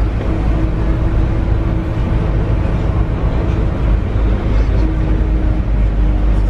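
Inside an airport apron bus on the move: steady low engine and road rumble, with a faint steady whine that comes in twice.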